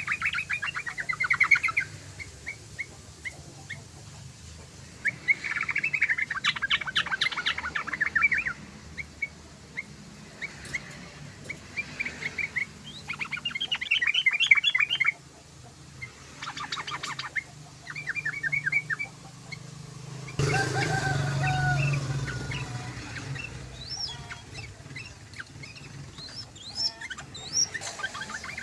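Yellow-vented bulbul singing: bursts of rapid, bubbling chatter repeated about half a dozen times with short gaps between them. About two-thirds of the way through, a few seconds of louder rustling noise with a low hum sit under the song.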